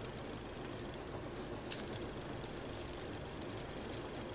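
Beads and wire of a bead dangle clinking and ticking lightly as they are handled, with one sharper click near the middle.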